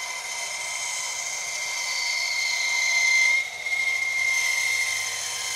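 Bandsaw running with a steady high whine as its blade cuts a curve through a thick wooden block, the sound swelling toward the middle and dropping briefly about three and a half seconds in.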